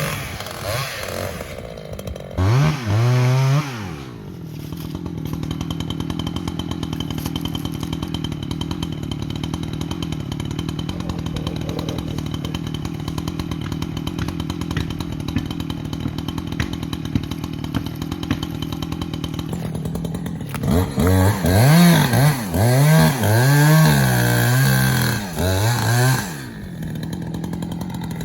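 Chainsaw idling, with its throttle opened in bursts: one short rev about three seconds in, a long steady idle, then a run of repeated revs near the end before it drops back to idle.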